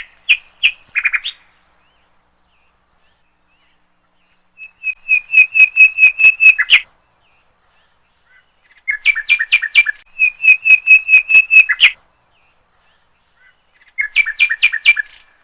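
A bird chirping in quick trills of rapidly repeated high notes, in four bursts separated by silence.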